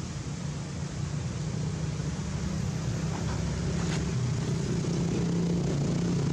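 A steady low engine hum from a motor running nearby, growing a little louder toward the end.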